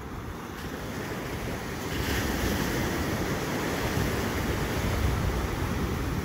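Ocean surf breaking and washing up a sandy beach, a steady rushing that grows louder about two seconds in, with wind rumbling on the microphone.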